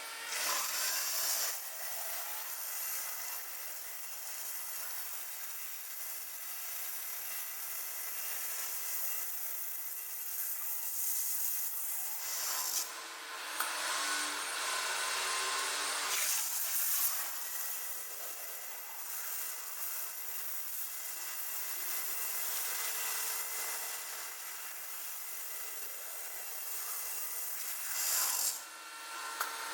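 CNC stone-working machine (AitalMAC Orbit A8) machining a stone slab: a steady rasping hiss of the tool on stone. It changes in sound for a few seconds near the middle and again briefly near the end.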